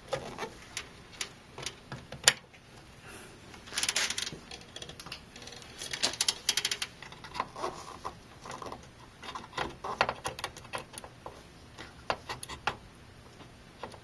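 Plastic clicks and rattles of DDR4 memory modules being handled and pushed into a motherboard's DIMM slots, with the slots' latches clicking. There is one sharp click about two seconds in and quick runs of clicking around four and six seconds in.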